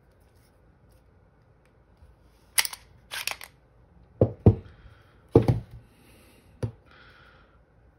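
Beretta 92X Performance pistol being taken down: sharp metallic clicks as the slide is worked off the frame, then several duller knocks and clacks as the steel parts are handled and set down on a towel.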